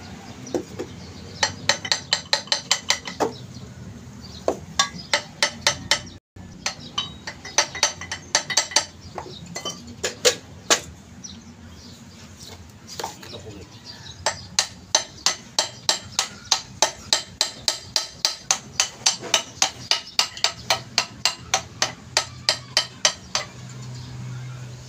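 Hammer tapping metal on a steering box housing, likely through a metal drift, in quick runs of light strikes, about four a second, each with a short metallic ring. The strikes come in several short runs, then one long run from about halfway through until near the end.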